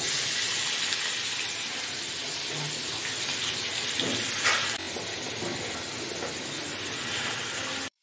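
Chopped onions frying in hot oil in a kadhai: a steady sizzle, briefly louder about four and a half seconds in as more onion drops into the oil, stopping abruptly just before the end.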